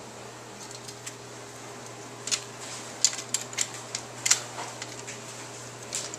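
Plastic Nano Habitat raceway track pieces clicking and knocking as they are fitted together by hand: a run of sharp clicks bunched in the middle, with one more near the end, over a steady low hum.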